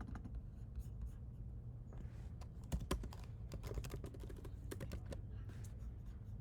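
Typing on a computer keyboard: a run of quick key clicks, thickest in the middle.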